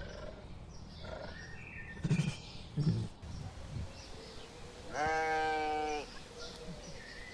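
An animal call: two short, low sounds about two and three seconds in, then one loud, steady, pitched cry about a second long.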